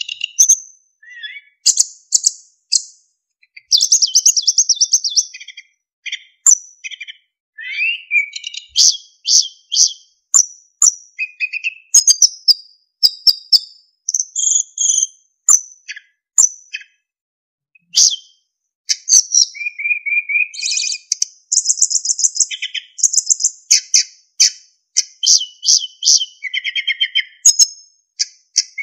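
Sikatan emas flycatcher singing at length: fast runs of high chirps, buzzy trills and clear flute-like whistles, in short phrases with brief pauses between them.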